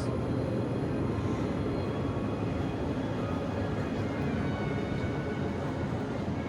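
Steady low rumble and hum of a grocery store's background noise, with faint steady tones above it.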